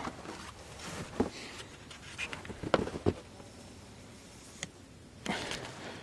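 Faint handling sounds of a tape measure being worked down into deep snow: a few light clicks and ticks, with a short breathy rush of noise about five seconds in.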